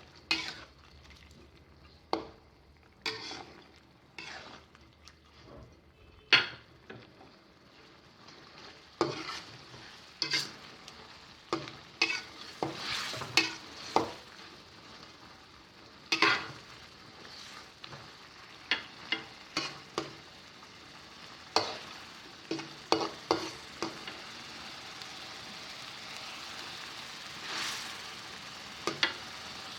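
Shrimp simmering in a sweet-and-sour sauce in a frying pan, sizzling, with a spatula scraping and knocking against the pan at irregular intervals as it is stirred. The sizzle grows thicker after the first several seconds.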